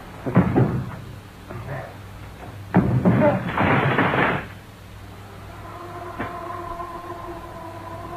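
Sound effects of a locked attic door being forced: a few heavy knocks, then a longer crash as the door gives way about three seconds in. A held music chord fades in after it.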